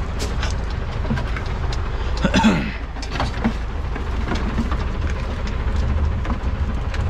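Steady low rumble of heavy vehicle engines, with scattered light clicks and knocks as air and electrical lines are handled, and a brief sound falling in pitch about two and a half seconds in.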